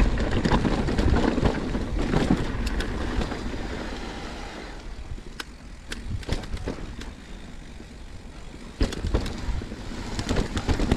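Commencal Meta Trail 29 mountain bike rolling down a rocky trail: tyres on rock and gravel, with rattling and sharp knocks from the bike. The sound eases for a few seconds in the middle, with only scattered knocks, then picks up again loudly near the end.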